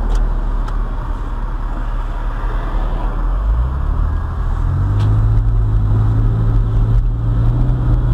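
Porsche 911 Carrera S Cabriolet's flat-six engine under way with the roof down, over tyre and wind noise. The engine note rises about halfway through, then holds steady and a little louder.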